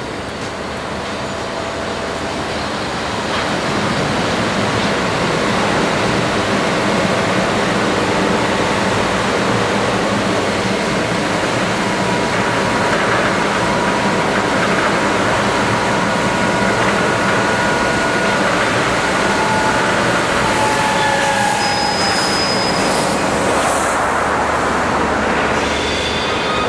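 Train running on rails: a steady rolling rumble that builds over the first few seconds, with a few short high-pitched wheel tones and a quick run of clicks near the end.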